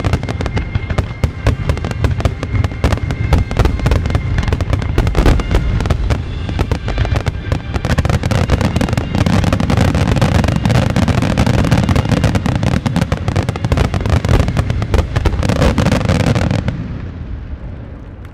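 Japanese star mine fireworks barrage at its climax: shells bursting in rapid succession, deep bursts with crackling, with music playing underneath. About 17 seconds in the bursts stop and the sound dies away quickly.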